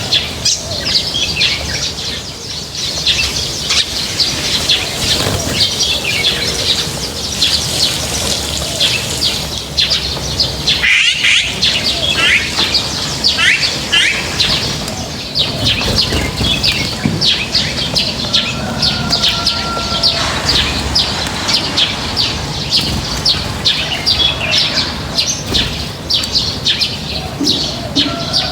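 A flock of small birds chirping continuously, many short high calls overlapping, with a brief held whistled note now and then.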